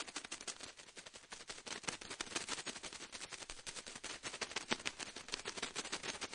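Faint, dense crackling: many sharp, irregular clicks a second.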